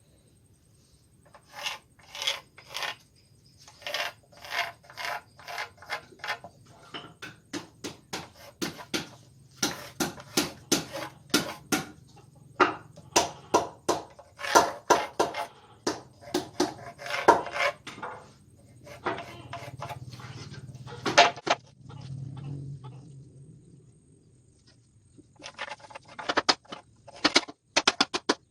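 A long series of sharp knocks in quick runs of several a second, with short pauses between the runs.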